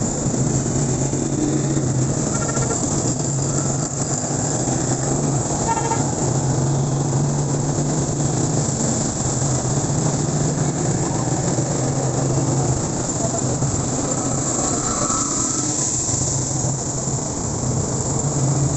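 Vehicle engine droning steadily while riding through traffic on a wet road, with tyre and wind noise and a few short horn toots.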